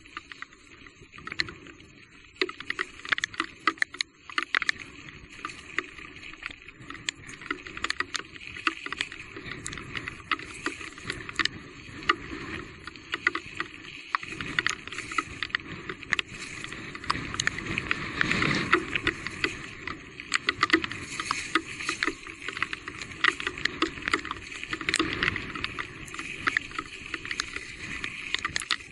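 Electric mountain bike riding over a rough, wet trail: frequent knocks and rattles over a steady wash of noise.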